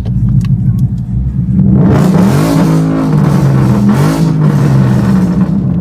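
Car engine running at a low steady note, then revving up about two seconds in, holding there for a second or two and dropping back down.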